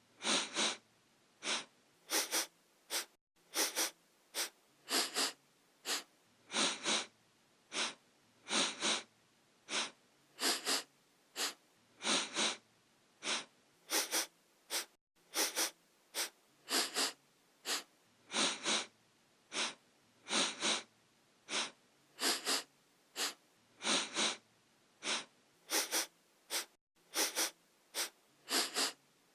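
A person sniffing through the nose in quick pairs of short sniffs, repeated every second or two in an even, looping pattern.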